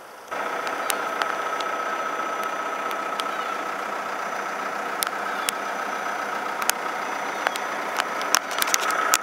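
Schmidt Swingo 200 compact road sweeper's engine running steadily with a high whine while its tipped hopper empties, with scattered sharp knocks that come more often near the end. The sound starts suddenly about a third of a second in.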